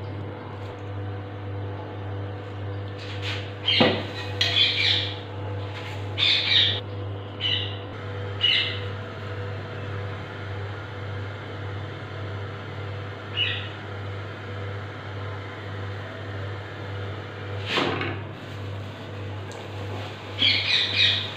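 Birds chirping in short bursts of high calls, over a steady low hum, with a couple of sharp clicks.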